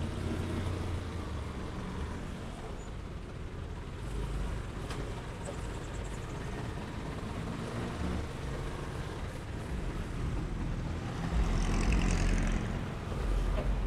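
Motorcycle engine running at low speed amid dense road traffic, with the low hum of surrounding car and truck engines. Around twelve seconds in it gets louder for about a second, with a short hiss.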